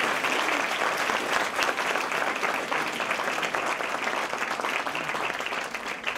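Audience applauding, a dense patter of many hands clapping that begins to thin out and fade near the end.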